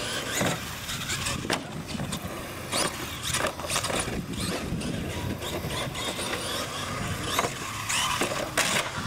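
Radio-controlled monster truck driving on concrete: its motor whines up and down with the throttle, its tires scrub, and it gives several sharp knocks as it runs over ramps and obstacles.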